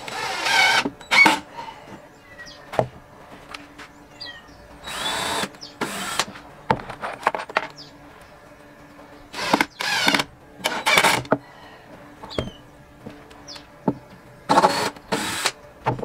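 Cordless DeWalt drill run in about six short bursts, each lasting a second or less, its motor pitch rising as it spins up. Small handling clicks fall in between, and a few bird chirps are heard.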